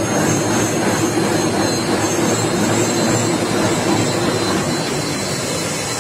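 Heavy trucks' diesel engines running steadily, a continuous low engine drone with a hiss on top.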